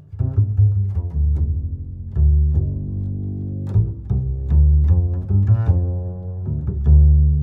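Background music in a low register: a line of held notes with sharp attacks, changing every half second to a second.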